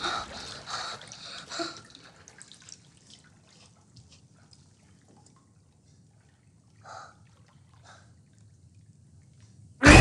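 Water dripping and lightly splashing in a bathtub, thinning out to near quiet, with a faint soft sound about seven seconds in. Just before the end a sudden loud blast of sound cuts in.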